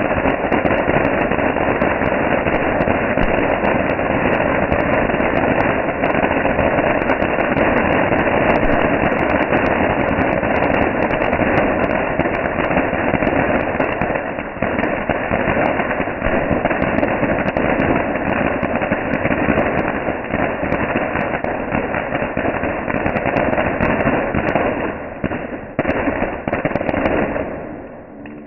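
Multi-jet ground fountain firework spraying sparks, a steady dense crackling hiss. Near the end it thins out and sputters as the fountain burns down.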